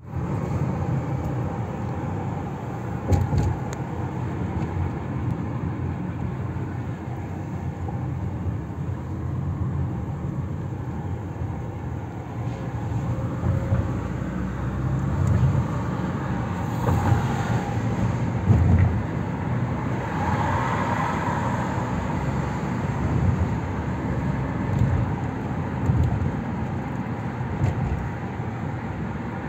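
Car driving in traffic, heard from inside the cabin: steady low engine and tyre rumble, with a few brief thumps.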